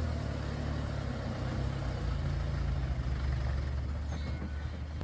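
Diesel engine of a Toyota Dyna dump truck running steadily as it climbs a dirt hill road, a low steady drone.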